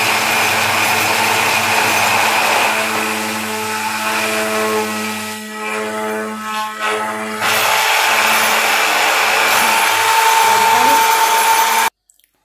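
Taurus Bapi 1000 stick blender running in a plastic jug, emulsifying egg, garlic and sunflower oil into alioli. The motor's pitch shifts as it works and it dips in loudness for a couple of seconds in the middle. It then cuts off suddenly near the end.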